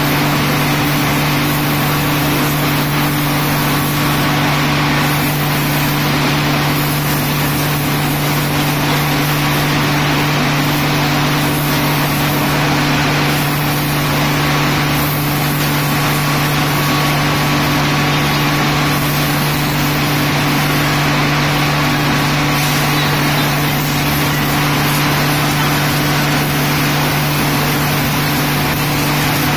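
A high-pressure water jet hissing continuously as it is sprayed onto a railway track bed, over a steady low machine hum, loud and unchanging throughout.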